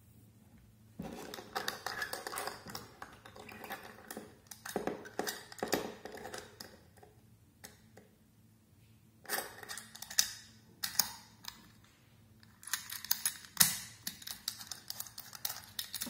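Master Lock dial combination padlock being picked by hand: rapid clicking and rattling as the dial is spun and the lock is handled, in three runs with short pauses between. The sharpest click comes about two-thirds of the way through.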